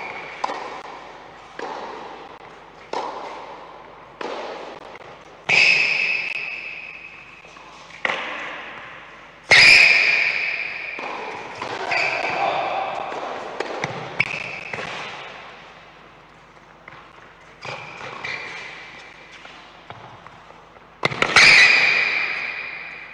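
Tennis rally: a ball struck back and forth by rackets and bouncing on a hard court, a sharp pop every second or two, each echoing around a large indoor hall. The loudest hits come about halfway through and near the end.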